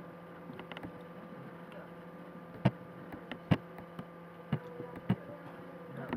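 A few sharp, isolated clicks at a computer, over a steady electrical hum.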